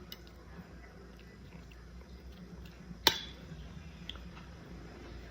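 Eating sounds: quiet chewing and small clicks of cutlery, with one sharp clink of cutlery against a plate about three seconds in.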